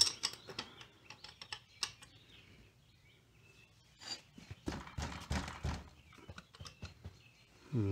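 Metal wrench clicking and clinking on a stubborn drain nut at the bottom of a scooter engine case. There is a run of quick clicks in the first two seconds, then a rattling cluster of knocks around the middle.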